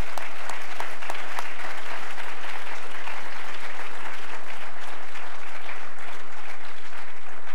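Audience applauding steadily, with a few sharp individual claps standing out close to the microphone.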